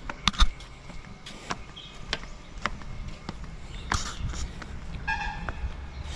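Footsteps on the metal checker-plate deck of a steel cable footbridge: sharp clanks, roughly one every half second, over a low steady rumble.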